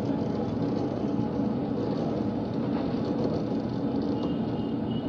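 Mini crane hoist driven by a 3 hp electric motor, running steadily as it winds its cable and lifts a loaded tub.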